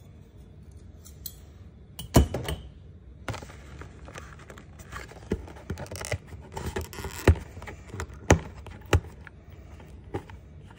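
Fingers picking and scraping at the sealed flap of a cardboard trading-card box, with scratchy rustling and several sharp clicks and taps. The flap is held shut by a very tough sticker seal.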